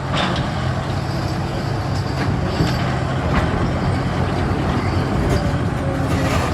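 Heavy construction machine's diesel engine running steadily, with a few faint clicks.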